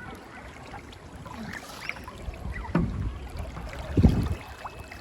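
Water sloshing and splashing in uneven bursts, with a louder splash about three seconds in and the loudest about four seconds in.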